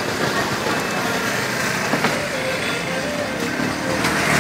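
Busy street background: a steady din of road traffic, with one sharp knock about two seconds in.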